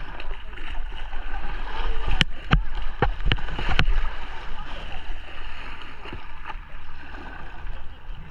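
Kayak paddle strokes splashing and churning the river water right beside a plastic whitewater kayak, over a steady rush of moving water. A quick run of about five sharp knocks comes between two and four seconds in, the loudest part.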